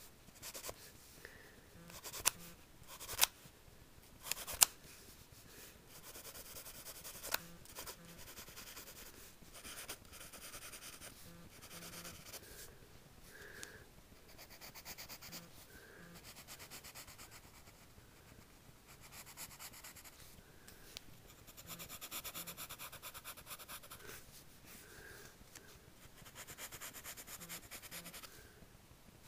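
Pencil scratching on lined notebook paper in runs of short, quick strokes while drawing, with brief pauses between runs. A few sharp clicks come in the first five seconds.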